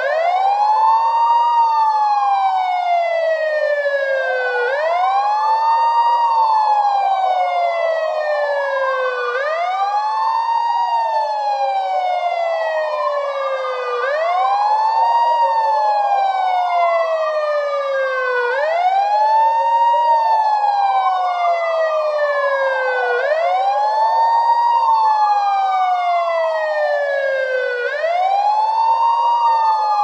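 Police siren on a slow wail. The pitch climbs quickly and then falls slowly, over and over about every four and a half seconds, with a second wail overlapping out of step.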